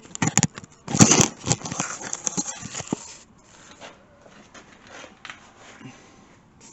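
Handling noise of metal drill bits: a clattering run of clicks, rattles and scrapes for about three seconds, loudest about a second in, then fainter scattered clicks and rustling.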